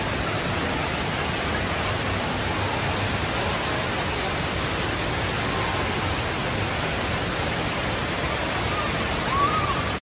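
Rain Vortex, the indoor waterfall at Jewel Changi Airport, with water gushing down from the dome into its pool as a steady, even rush.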